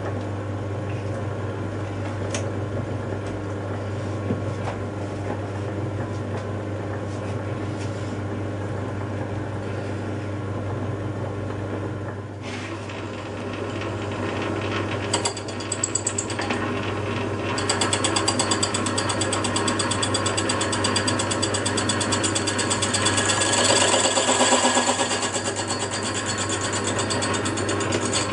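Metal lathe running with a steady low hum. About halfway through, the cutting tool bites into the spinning cast flywheel and a high scraping sound with rapid, regular ticking builds up, loudest a few seconds before the end.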